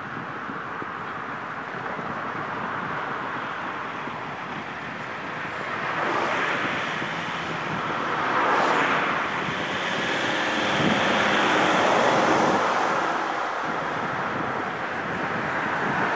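Wind rushing over the microphone of a bicycle-mounted camera on a steady uphill ride, with cars swelling past in the oncoming lane several times, each a rising and falling rush of tyre and engine noise.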